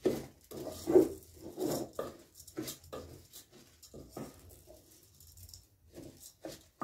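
Wooden spoon stirring and scraping rice and carrots frying in a pot, about three quick strokes a second, fainter and sparser after about four seconds.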